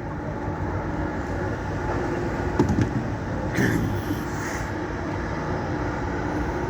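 Large excavators' diesel engines running steadily on heavy rock work. A single sharp knock comes about two and a half seconds in, and a short high-pitched creak follows about a second later.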